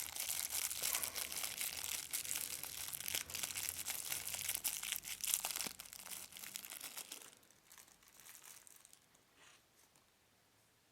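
Small packet being opened and handled, crinkling and rustling for about seven seconds, then a few faint rustles before it goes quiet.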